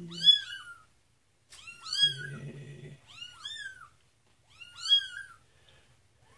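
A kitten meowing over and over, about seven short, high-pitched meows, several in quick pairs, as it protests being lathered and washed in a flea bath.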